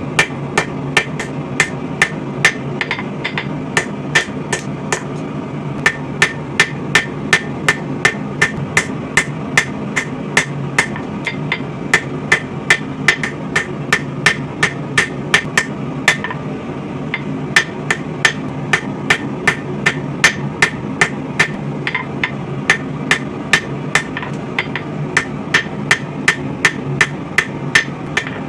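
Hand hammer striking hot coil-spring steel on an anvil, about three blows a second, drawing out and re-beveling a knife blade. The hammering stops briefly about five and sixteen seconds in, and a steady low rumble runs underneath.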